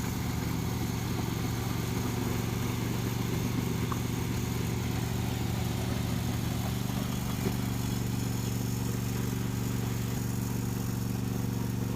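John Deere D130 lawn tractor's V-twin engine running at a steady speed.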